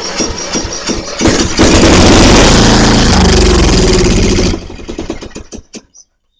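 Murray lawn mower engine cranked by its electric starter, firing on a teaspoon of priming gas poured into the carburetor: it catches about a second and a half in and runs loud at full throttle for about three seconds, then sputters and dies once the prime is burnt, with no fuel in the tank.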